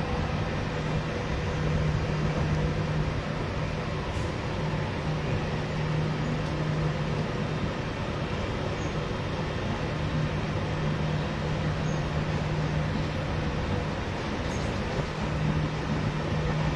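Southern Class 377 Electrostar electric train standing at the platform with its equipment running. It gives a steady hum over a noisy background, and a low drone swells and fades every few seconds.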